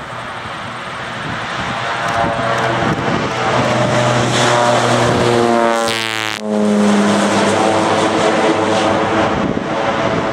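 Air Tractor AT-402 agricultural plane's turboprop engine and propeller at takeoff power, growing louder as it climbs toward the listener. About six seconds in it passes directly overhead and the pitch drops sharply, then the drone carries on lower as it climbs away.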